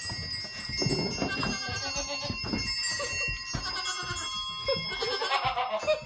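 Goats bleating several times, with a wavering pitch, over a steady ringing of bells.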